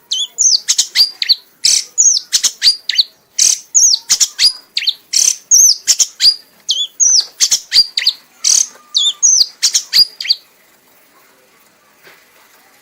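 Kanis merah songbird singing in fast, repeated phrases of sharp clicks and high whistles that sweep downward, about two to three a second, then stopping about ten seconds in. This is the frenzied 'mabok' singing that keepers prize in the bird.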